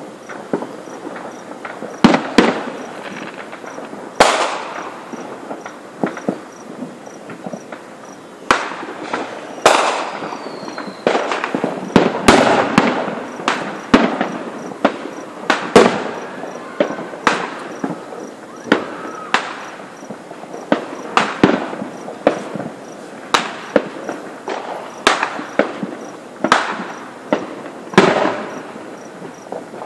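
Aerial fireworks display: a steady run of shell bursts, about one every second or so, with crackling between them and a brief falling whistle about ten seconds in.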